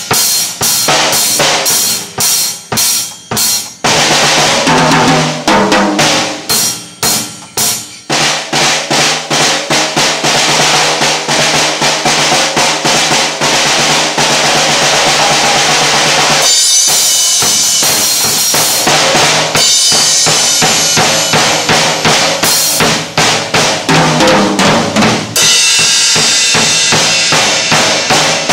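A Ludwig drum kit with Zildjian cymbals being played. For the first few seconds there are separate bass drum, snare and tom hits, then long stretches of continuous cymbal crashing over the drums, with short breaks back to single hits.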